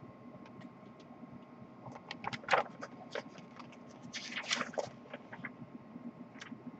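Pages of a paper booklet being handled and turned: soft rustles and small clicks, with a longer rustle about four seconds in.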